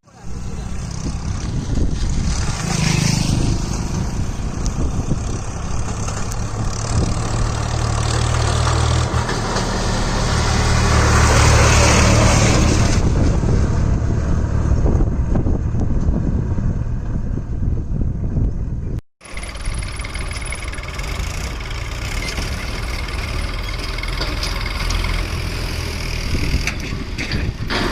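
Diesel engines of a JCB loader and a Swaraj 735FE tractor running under load, swelling louder around 10 to 13 seconds in. The sound breaks off abruptly about 19 seconds in and picks up again.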